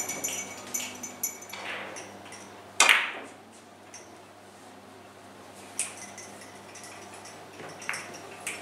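Carom billiard balls clicking against each other and the cue tip striking the cue ball: a run of sharp clicks, one much louder knock about three seconds in, then a few more scattered clicks.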